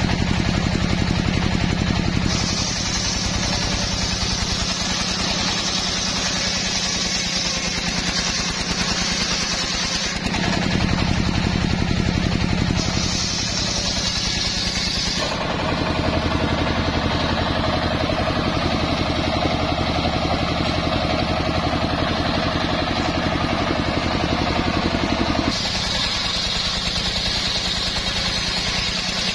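Homemade engine-driven circular saw bench ripping a hardwood log lengthwise: the engine runs steadily under load beneath the hiss of the big blade cutting through the wood. The sound shifts abruptly several times, the cutting hiss dropping away and coming back.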